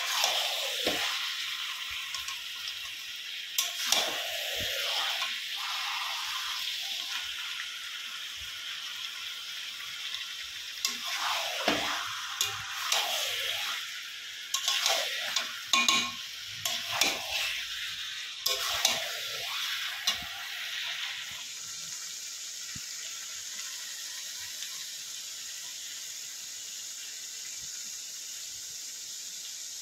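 Kitchen sounds: a metal utensil scraping and knocking against a pot in irregular bursts over a steady hiss. About two-thirds of the way through the clatter stops and only a quieter steady hiss is left.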